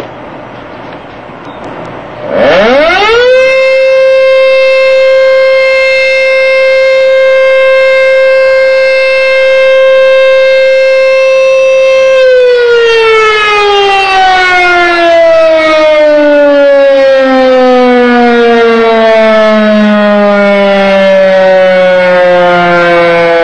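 ACA air-raid siren sounding loud, a block away. About two seconds in it winds up quickly to a steady high tone and holds it for about nine seconds, then slowly falls in pitch while still sounding. It is a routine scheduled sounding that goes off four times a day.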